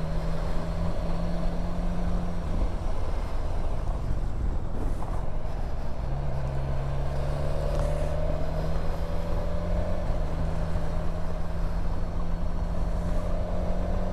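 Motorcycle engine running steadily while the bike is ridden along a winding mountain road; the engine note shifts lower about six seconds in, then holds steady.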